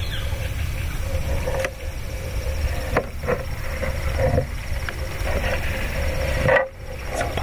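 Steady wind rumble on the microphone, with a few short knocks and rustles of a hunter shifting in a metal tree stand; the loudest knock comes near the end.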